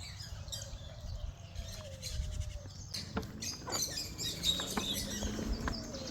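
Aviary birds chirping and calling, with a burst of short high calls from about halfway in. A low hum that slowly rises in pitch runs underneath in the second half.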